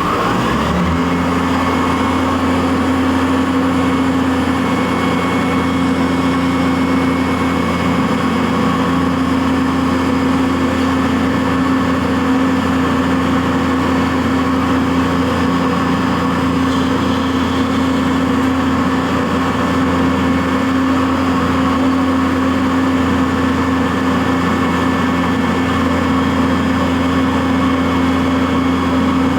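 CNC vertical milling machine running, its spindle coming up to speed in the first second and then holding a steady pitch.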